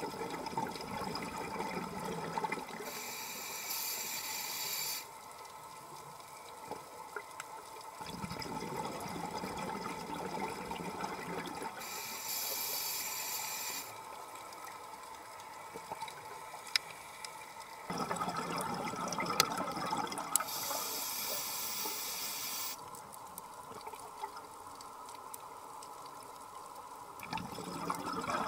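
Scuba diver breathing through a regulator underwater: a gurgling rush of exhaled bubbles, then a hissing inhale, repeating about every nine seconds. Scattered sharp clicks can be heard throughout.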